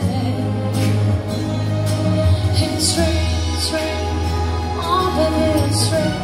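A woman singing into a microphone over a pop backing track with bass and drums, played through PA speakers.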